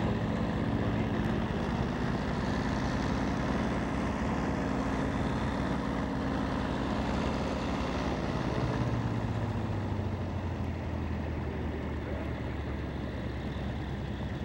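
Grumman F8F Bearcat's Pratt & Whitney R-2800 radial engine running on the ground. Its pitch rises a little, then drops to a lower, steady idle about ten seconds in.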